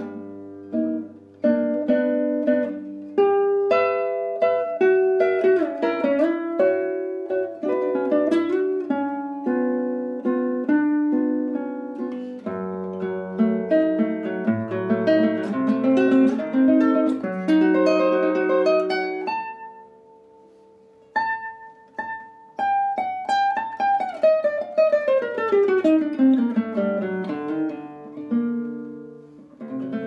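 Nylon-string classical guitar played solo with the fingers: quick, flowing plucked notes. About twenty seconds in they thin to a held, quieter note, then a long descending run follows.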